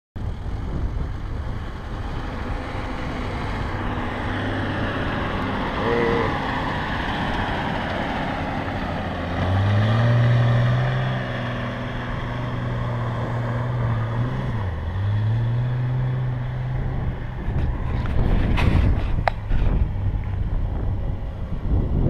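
Toyota LandCruiser 4WD engine revving hard as it drives through a deep muddy creek crossing. The engine note rises about halfway through, dips briefly, climbs again and then fades as the truck pulls away, over a steady rushing background.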